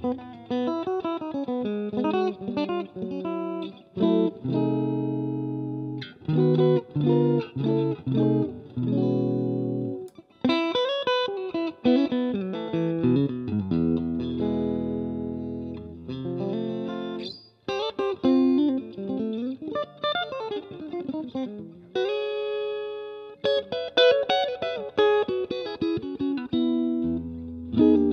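Electric guitar played through a 1964 Fender Super Reverb tube amp with four 10-inch speakers: clean chords and single-note lines in short phrases, notes ringing out between strums, with a brief pause about two-thirds of the way through.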